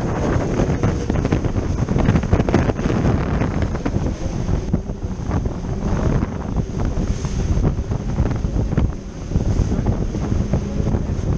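Wind buffeting the microphone and water rushing past the hull of a Multi 50 racing trimaran sailing fast, a steady gusty rush heaviest in the low end, with a thin steady high whine above it.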